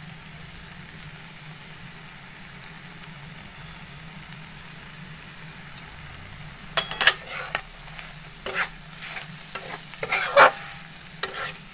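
Egg bhurji frying in a steel kadhai with a soft, steady sizzle. From about seven seconds in, a metal spatula scrapes and knocks against the pan in several short bursts as the coriander is stirred through, the loudest just after ten seconds.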